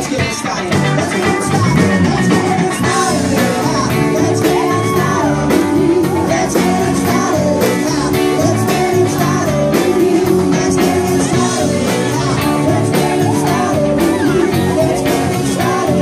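Live cover band playing a rock-and-roll song: a singer over guitar and a steady drum beat.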